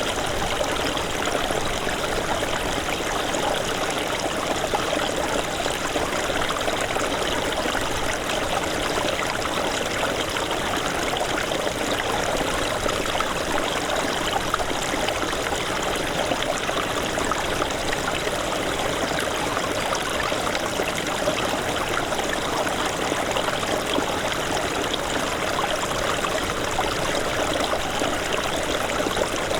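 Small snowmelt stream running over rocks: a steady, continuous babble and trickle of water.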